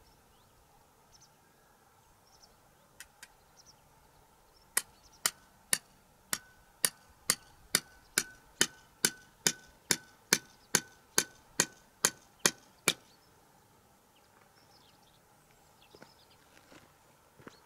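A thin perch stake being hammered into stony ground: about nineteen sharp blows, a little over two a second, each with a short ring.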